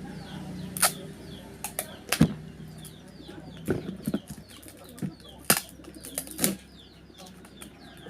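Paper crinkling and rustling in irregular sharp crackles and taps as a handmade paper squishy is handled.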